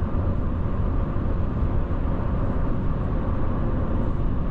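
Steady road and engine noise inside a diesel pickup's cab at highway speed: an even low hum with tyre rumble.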